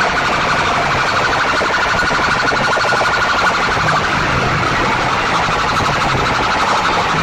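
Very loud sound blasting from stacked horn loudspeakers of a competition sound rig: a dense, unbroken wall of sound with a fast, even warbling flutter in the upper range and a steady low hum beneath, alarm- or siren-like in character.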